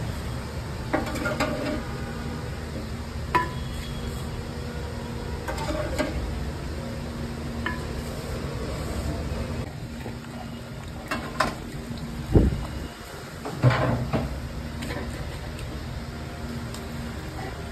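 Metal pots and utensils clinking and knocking now and then over a steady background hum, with a heavier thump about twelve seconds in.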